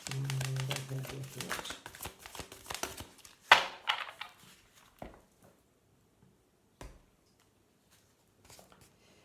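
Oracle cards being shuffled by hand: a quick run of papery clicks and rustles. About three and a half seconds in come two sharp slaps as cards are set down on the table, then a few soft taps.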